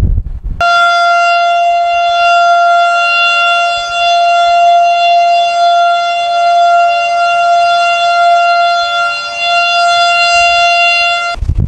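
Outdoor tornado warning siren sounding one long steady tone, wavering gently in loudness. It starts abruptly about half a second in and cuts off just before the end.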